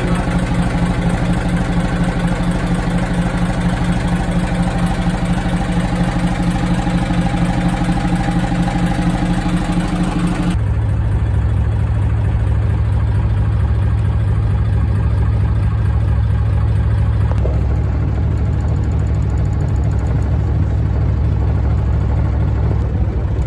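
Yamaha inboard marine diesel engine idling steadily at about 500 rpm. About ten seconds in, the sound changes abruptly to a deeper, duller hum.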